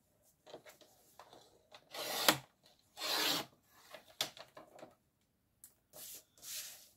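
Sliding paper trimmer cutting a sheet of patterned paper: a sharp click and two strokes of the blade along the rail about two and three seconds in. Near the end, two shorter strokes as the paper slides across the board.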